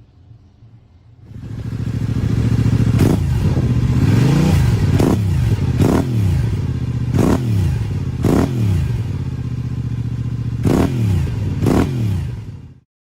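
Yamaha YZF R7's 689 cc parallel-twin engine through an Akrapovič exhaust, idling and then revved in about eight short throttle blips, each rising and falling quickly. The engine sound comes in about a second in and cuts off suddenly near the end.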